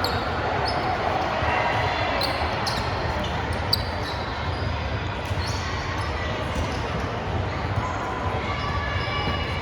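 Volleyball play: sharp ball hits and short high squeaks, likely sneakers on the court, over indistinct voices. The loudest hit comes nearly four seconds in.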